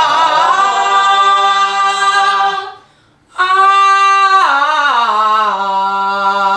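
Women's voices singing long held vowels in a pansori vocal warm-up (발성 practice). One sustained note breaks off for a breath about two and a half seconds in. Then a new note is held and steps down in pitch about a second later.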